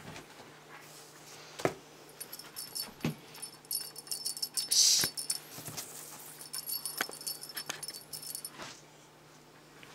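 A small bell jingling in two stretches, in the middle and near the end, with scattered soft knocks and a short scratchy rustle about five seconds in, as a cat bats and bites at a feather wand toy on a cloth-covered table.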